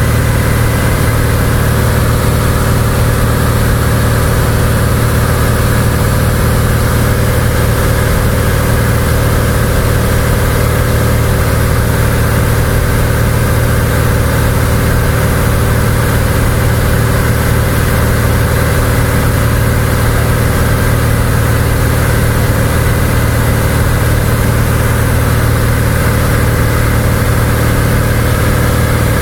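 Cessna 172's piston engine and propeller running steadily in cruise flight, heard from inside the cabin as an unchanging low drone with hiss over it.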